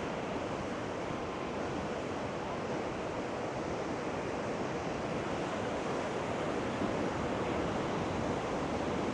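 Ocean surf washing onto the beach, mixed with wind buffeting the microphone: a steady, even rush of noise.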